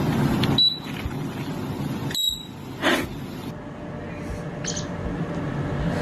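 Pet parrot giving short, high beep-like whistles, two of them about a second and a half apart, mimicking an electronic beep, with some rustling around them.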